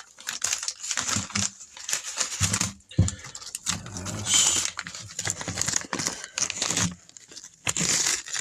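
Packaging of a freeze-dried ice cream bar being crinkled and pulled open by hand, in irregular rustles and crackles.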